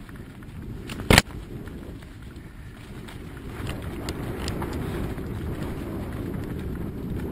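Mountain bike rolling fast down a dirt trail covered in leaves: steady tyre rumble with wind rushing over the microphone, growing louder in the second half. A single loud, sharp knock about a second in.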